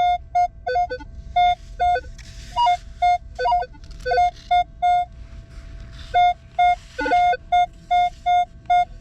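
Minelab Equinox metal detector beeping through its built-in speaker as the coil is swept back and forth over a clad quarter and a silver quarter: short repeated target tones, about two a second, mostly on the same mid pitch, with a few beeps breaking higher or lower. The two coins give no clearly different tone.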